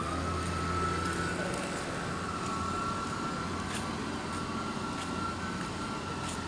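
Steady low machinery hum with a thin, steady whine above it that rises slightly in pitch, and a few faint ticks.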